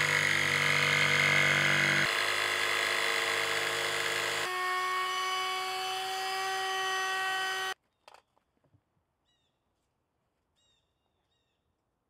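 Handheld electric jigsaw cutting a hole in a plywood lid, then an electric wood router running steadily as it trims the hole's edge. The router cuts off suddenly about eight seconds in, leaving near silence.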